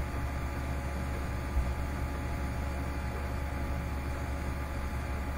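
Steady low hum with an even hiss of background noise.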